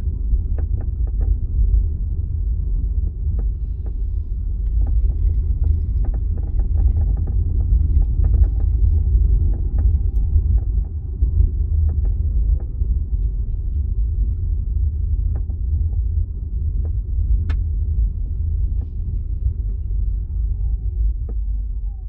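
Road rumble inside a 2025 Hyundai Ioniq 5 Ultimate while driving, with irregular sharp rattle and creak clicks from the boot (trunk) area. The clicks are most frequent in the first half, with one sharper click later on.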